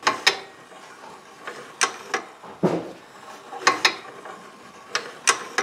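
Homemade cam-and-pushrod valve gear on a small engine's main shaft, turning slowly: the cams strike the spring-returned pushrods that work the spool valves, giving a series of sharp metal clicks, mostly in close pairs.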